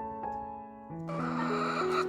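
Gentle piano background music; about a second in, chickens clucking come in over it.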